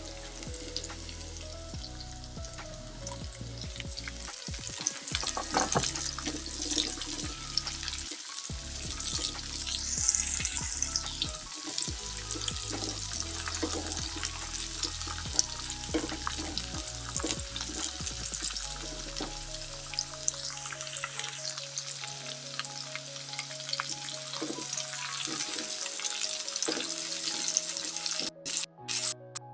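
Food sizzling and crackling as it is stir-fried in a pan, with scattered clicks from a utensil stirring it. The sizzling breaks off near the end, under steady background music.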